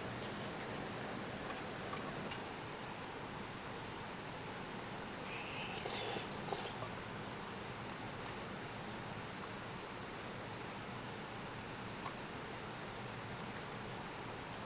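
A summer insect chorus: a steady high buzz with a higher call pulsing about once a second, over the steady rush of creek water.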